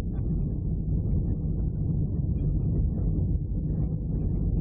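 Jet airliner cabin noise on approach: a steady low rumble of engines and rushing air heard through the fuselage.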